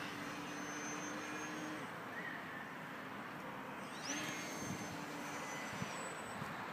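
Electric motor and propeller of a small foam radio-controlled scale model airplane (Howard DGA-4) whining overhead in flight. The motor is throttled back about two seconds in, spools up again with a rising whine about four seconds in, and cuts back near the end, over a hiss of wind on the microphone.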